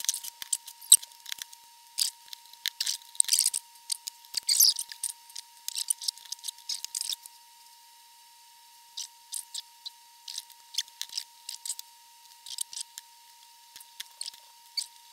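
Hands handling a small metal valve-amplifier chassis part and its wires on a workbench: a busy run of clicks, taps and scrapes for about seven seconds, then scattered clicks, over a faint steady high tone.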